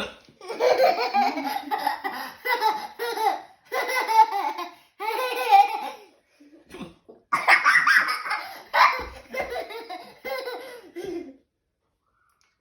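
Someone laughing hard in two long bouts, each set off by a short sharp hiccup.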